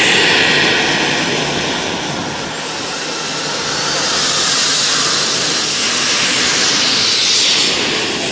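Small turbine engine of a radio-controlled model jet running, a high whine over a rushing exhaust. It dips a little, then swells louder again about halfway through.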